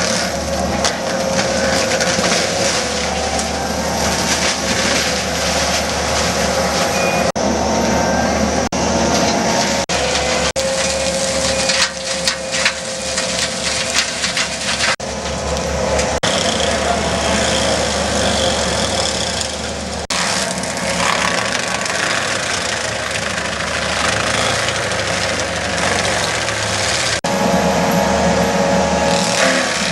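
Skid steer loader running hard while its FAE mulcher's fixed-tooth rotor shreds brush and wood, with cracking and splintering as material is chewed up. The machine sound jumps abruptly several times where clips are cut together.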